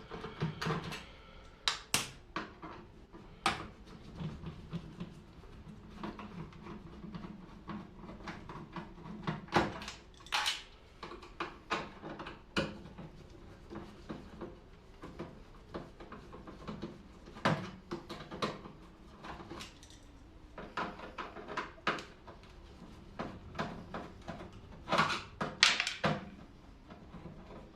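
Irregular clicks, clinks and knocks of hand tools and metal parts being handled while a microwave oven is taken apart by hand, with the sharpest knocks about ten seconds in and again near the end.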